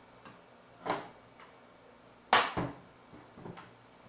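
Ruger Mini 14 rifle being closed up during reassembly: a few light metal clicks, then one sharp snap a little over two seconds in as the action is closed, and a couple of softer clicks after it.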